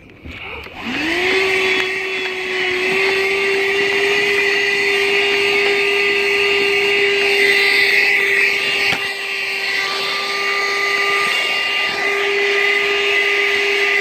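Armor All 12-volt handheld car vacuum switched on about a second in: its motor spins up with a rising whine, then runs steadily with a high hum and an airy rush of suction as it vacuums the car upholstery.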